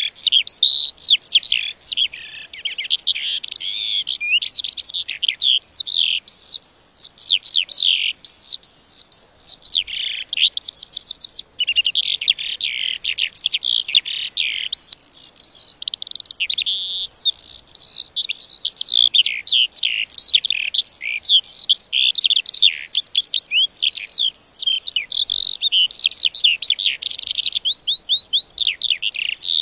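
A lark singing a long, continuous song of rapid, high-pitched chirps, trills and warbles that runs on with barely a break.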